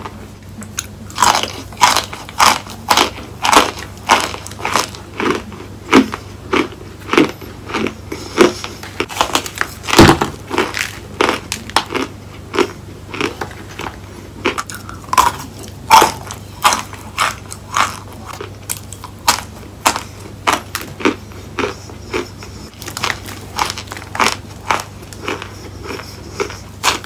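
Close-up chewing of a mouthful of dry cornstarch chunks: sharp, irregular crunches one or two a second, the loudest about ten seconds in.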